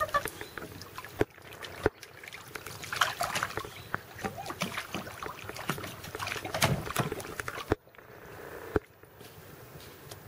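Pool water splashing and lapping as a Weimaraner puppy paddles, with irregular small splashes; it quiets down about eight seconds in.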